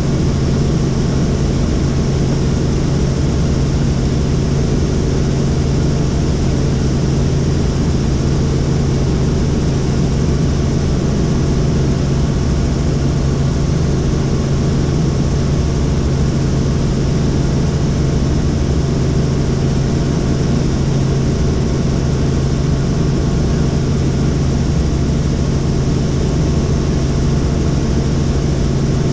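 Helicopter in flight heard from inside the cabin: steady engine and rotor drone with a strong low hum, unchanging throughout.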